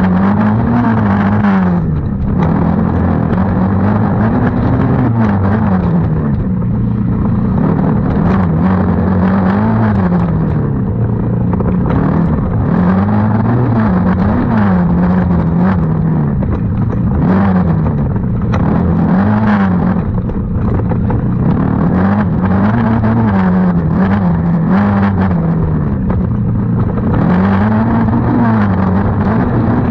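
Small 90 cc youth racing engine revving hard and easing off again and again, its pitch rising and falling every second or two as the rider works the throttle around the track.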